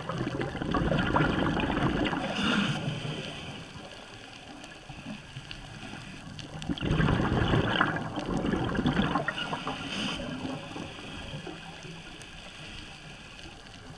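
Scuba diver's breathing heard underwater: bubbling exhalations from the regulator in two long bouts, one at the start lasting about three seconds and another from about seven to ten seconds in, with a quieter steady hiss between.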